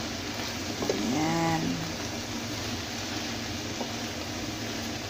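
Swiss chard leaves sizzling in a hot pan as they wilt, a steady hiss, with a short hummed voice sound about a second in.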